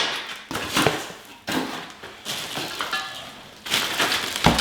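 Metal cart parts being handled and set down: scattered knocks and clatters, a brief ringing metallic clink about three seconds in, then a busier clatter and a thump near the end.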